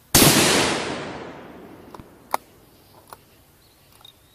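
A single rifle shot from a 6mm Creedmoor bolt-action rifle, its report dying away over about a second and a half through the woods. Then a few sharp metallic clicks follow about two to four seconds in as the bolt is worked.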